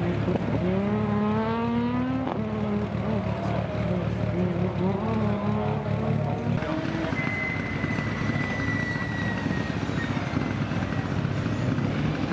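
Rally car engines revving hard through a cone slalom, the pitch climbing and then dropping sharply with gear changes, and climbing again near the end. A thin high whine sounds for a few seconds in the middle.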